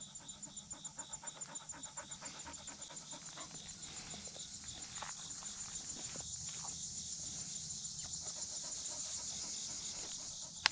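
A flat-coated retriever panting rapidly, about five breaths a second, over a steady high pulsing of insects.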